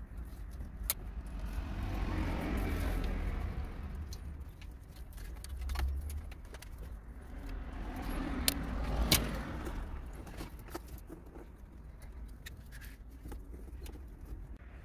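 Stubborn plastic wiring-harness connectors being pried and tugged off the back of a car stereo: rustling and rattling of the wire bundle and the stereo's metal case, with scattered sharp plastic clicks, the loudest about nine seconds in.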